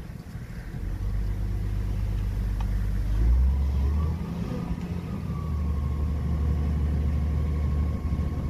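Truck-mounted crane's engine running with a low, steady hum that picks up and gets louder about three seconds in, with a thin steady whine joining about a second later as the crane works.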